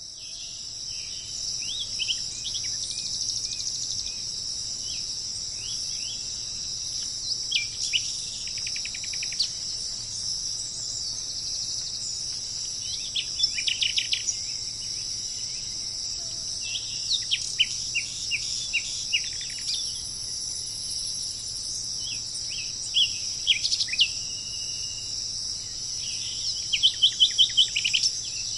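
Steady, high-pitched insect chorus with a songbird calling over it in short clusters of sweeping chirps, ending in a quick run of about seven loud notes near the end.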